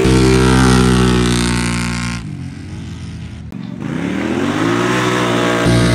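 ATV engines run at full throttle on a drag launch, the pitch held high, then falling away about two seconds in. After a sudden break, an engine climbs in pitch again and holds high near the end.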